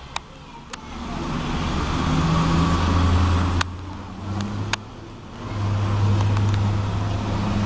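Motor vehicle engine running close by with a low steady hum. It breaks off suddenly about three and a half seconds in and builds back up a little after five seconds, with a few sharp clicks along the way.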